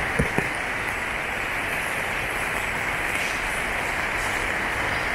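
Steady rain falling on wet paving, an even hiss throughout, with two sharp taps in the first half second.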